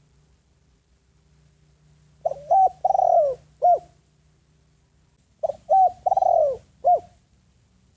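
Spotted dove cooing: two phrases, one about two seconds in and one about five and a half seconds in. Each has four notes: two short ones, a longer falling one, then a short one.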